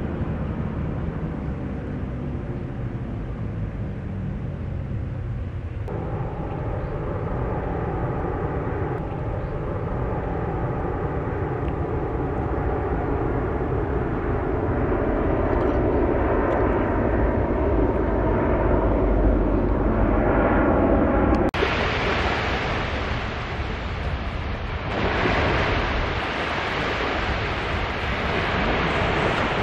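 A jet aircraft flying over, a steady drone that grows louder for about fifteen seconds. About two-thirds of the way through it gives way suddenly to small waves washing onto a sandy beach, with wind on the microphone.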